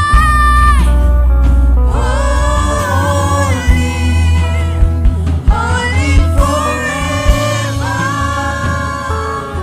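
Church choir singing long held notes over a band, with a strong bass line under it.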